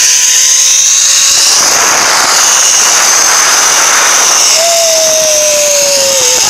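Zipline trolley pulleys running fast along a steel cable: a loud, steady, high-pitched whir with thin whining tones. A rush of noise swells in the middle, and a tone falls slowly in pitch over the last two seconds.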